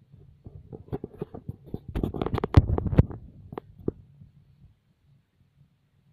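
Cat suckling on a fleece blanket: a quick irregular run of wet sucking clicks and smacks, densest and loudest in the middle, dying away a little after the fourth second, over a faint low steady rumble.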